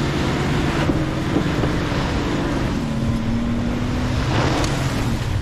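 Lifted pickup truck's engine running steadily at low speed as it crawls along a snowy, muddy trail, with tyre noise through the slush and wind buffeting the microphone.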